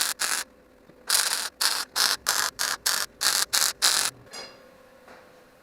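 MIG welder laying a quick run of short tack/stitch welds on thin sheet-steel floor panel: about a dozen brief bursts of crackling arc, stopping about four seconds in. A short ringing tone follows, over a faint steady hum.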